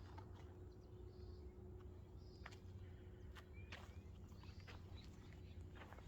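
Near silence: faint outdoor ambience with a low rumble, a thin steady hum, and scattered faint ticks and short high chirps.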